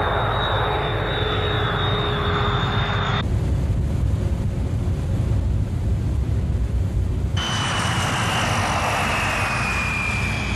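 Jet aircraft engines running: a steady rush of noise with a high turbine whine. It comes in three abrupt cuts. From about three seconds in to past seven seconds the whine drops out for a lower rumble, then it returns and slowly falls in pitch.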